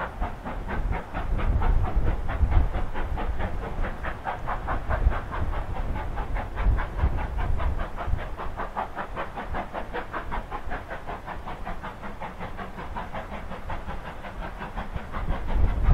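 Steam locomotive working hard, its exhaust chuffing in a fast, even rhythm of about four or five beats a second. A low wind rumble on the microphone runs underneath.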